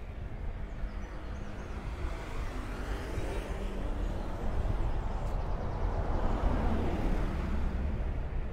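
Road traffic passing on a city street: a motorbike and a double-decker bus approach and go by. The noise swells from about two seconds in, with a low rumble, and eases near the end.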